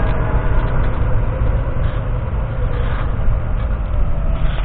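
Claas Axion 830 tractor's 6.7-litre six-cylinder diesel engine running steadily with a deep rumble as it pulls a seed drill.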